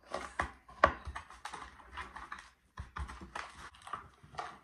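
Metal fork pressing and tapping against a clear plastic tub, crushing hard vitamin C tablets: a run of irregular sharp clicks and scrapes, the loudest about a second in.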